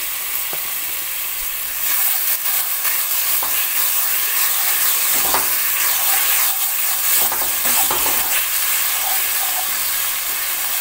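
A spice masala with freshly added whisked yogurt sizzling in hot oil in a pan while a wooden spatula stirs and scrapes through it; the sizzle gets louder about two seconds in. The masala is being fried down until the oil separates.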